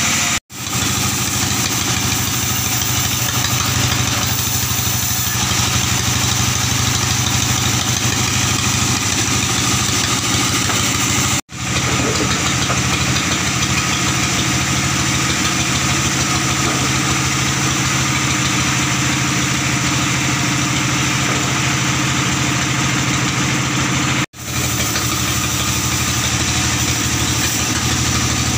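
Sawmill's stationary engine running steadily with an even hum. The sound cuts out for an instant three times.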